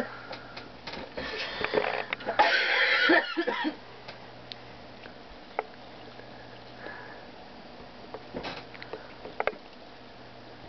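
Large dog sniffing and snuffling at a kitten with its nose pressed against it. There are short breathy sniffs, then a longer loud snuffle between about two and a half and four seconds in, followed by only a few faint ticks.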